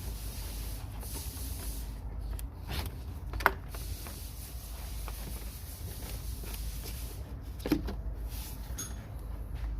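Intake tube being fitted back onto the throttle body: a few handling sounds and sharp plastic-and-metal clicks, the loudest about three and a half seconds in and another near eight seconds, over a steady low rumble.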